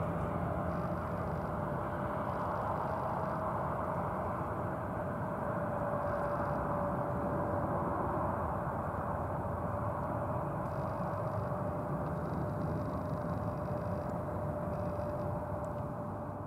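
Rolls-Royce Trent XWB turbofans of an Airbus A350-900 at idle thrust while the aircraft taxis: a steady, even jet noise with one constant whine above it.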